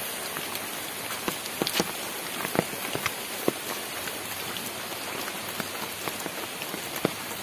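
Steady rain falling, with scattered louder drops tapping on an umbrella held overhead.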